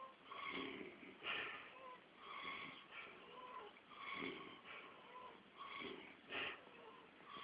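A man snoring, a long snore about every two seconds, some with a thin whistling note, and two short, sharp snorts between them.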